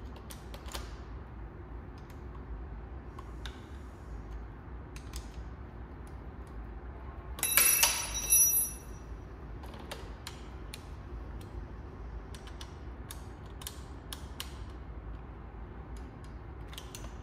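Light clicks and taps of a small tool and hands working the brake lever clamp on an electric scooter's handlebar, with one loud, high squeak lasting about a second a little past halfway through as the lever assembly is turned on the bar.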